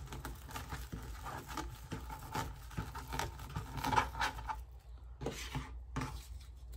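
Deco mesh rustling and crinkling in the hands as it is rolled up and pinched, in scattered soft crackles that get a little louder about four seconds in.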